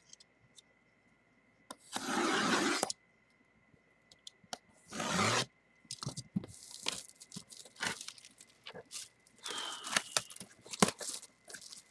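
Hands tearing open and handling a cardboard jersey box: a rip about a second long two seconds in, a shorter rip around five seconds, then a run of cardboard scrapes, crinkles and taps.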